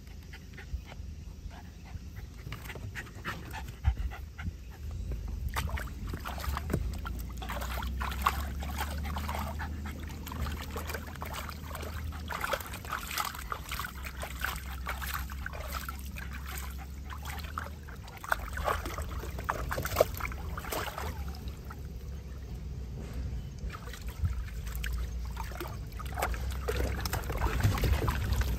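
Water sloshing and splashing in a plastic tub as a Jack Russell terrier wades and moves about in it, with the dog panting, over a low rumble.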